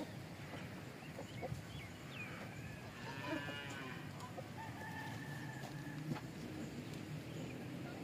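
Goat bleating: one wavering call about three seconds in, then a shorter flat call around five seconds, over a farmyard background with faint chirps.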